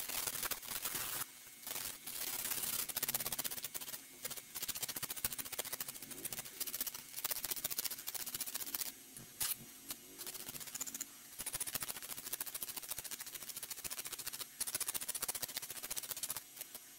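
A steel slingshot frame being rubbed by hand with an abrasive sanding sponge to take off rust: irregular scratchy rubbing strokes, broken by short pauses.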